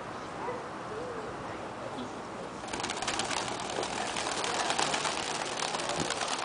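A flock of white doves taking off together, a dense rapid flapping of many wings that starts suddenly about two and a half seconds in and keeps going.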